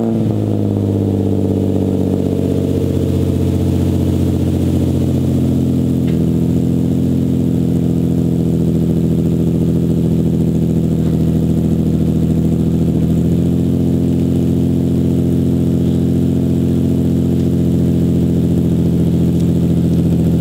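Infiniti G35's 3.5-litre V6 catching just after being cranked, flaring briefly, then settling into a steady idle that eases slightly lower about six seconds in.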